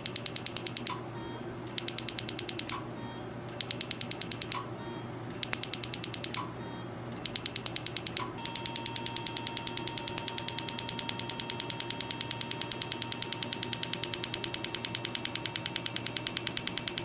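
Laser-driven needle-free injector (MiraJet) firing its microjets as rapid, evenly spaced clicks. There are five short bursts of clicking about a second apart, then unbroken clicking from about eight seconds in, when a faint steady tone also comes in.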